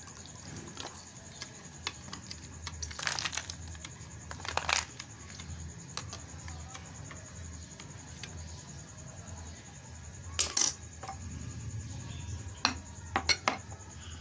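Metal spoon stirring a milky drink in a glass bowl, clinking against the glass a few times at irregular moments, the loudest clink about ten seconds in.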